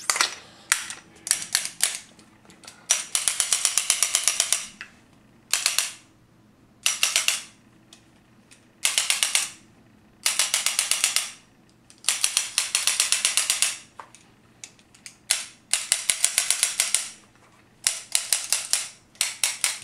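Azodin Blitz electronic paintball marker being dry-fired, with no air tank attached: sharp mechanical clicks, some single and some in rapid bursts of about ten a second that last one to two seconds each.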